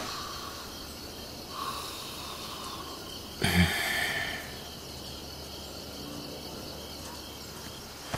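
Quiet ambient sound-effect bed of faint steady background noise, with a short louder rustle and low thump about three and a half seconds in.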